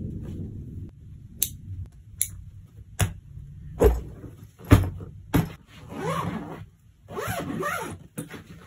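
Soft-sided carry-on suitcase being closed: a string of thumps and knocks as clothes are pressed in and the lid is flipped shut, then two long zipper pulls near the end.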